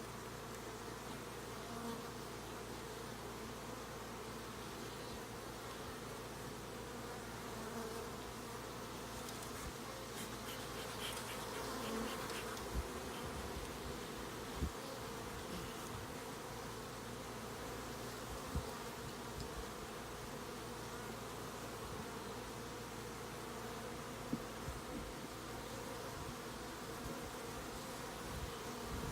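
Honeybees buzzing steadily around an open hive, a continuous hum. A few short knocks come in during the second half.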